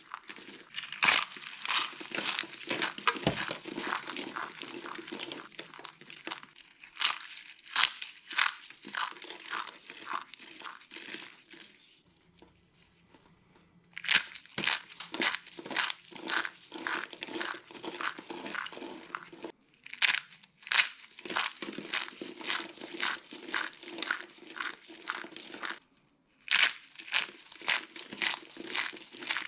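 Dry soap being crushed and crumbled: dense, rapid crackling crunches that come in runs, with a pause of about two seconds near the middle and a brief one later.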